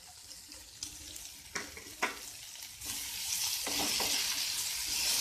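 Spatula stirring cauliflower, potato and peas dry-frying in an uncovered nonstick pan, the vegetables being cooked until dry and crisp. A few light knocks come in the first two seconds, then a steady sizzle swells about three seconds in, with a couple of scrapes.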